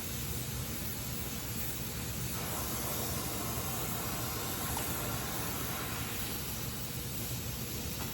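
Gas welding torch flame hissing steadily while welding aluminium, the hiss growing fuller for a few seconds in the middle before settling back.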